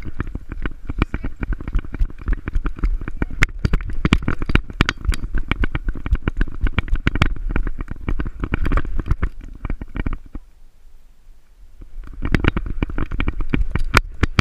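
GoPro on a running dog's harness jolting with each stride: a rapid, irregular run of thumps and rattles, with a quieter lull of about two seconds near the end before the thumping resumes.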